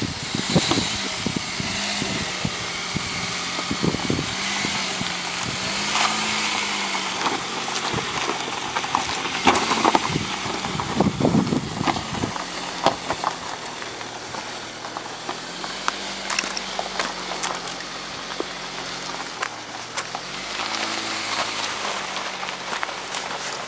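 Honda CR-V engine pulling under load over rough ground, its pitch rising and falling with the throttle. Frequent knocks and crackles sound over the engine.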